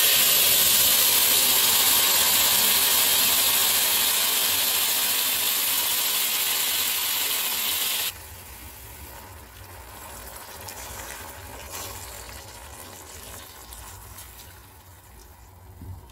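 Canned diced tomatoes and their juice hitting hot oil and garlic in a stainless-steel pan: a loud, steady sizzling hiss that cuts off suddenly about eight seconds in, after which only a much quieter sizzle remains.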